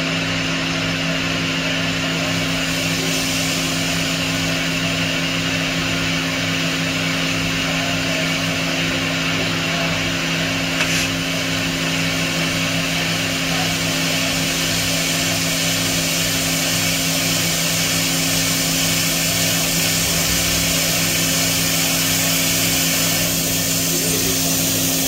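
Roku-Roku Sanyo HC-658 vertical machining centre running: a steady hum with a regular low pulsing, joined about three seconds in by a stronger high hiss.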